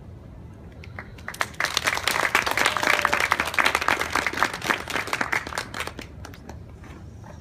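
Audience applauding: a few claps about a second in build quickly into dense applause, which tapers off about six seconds in.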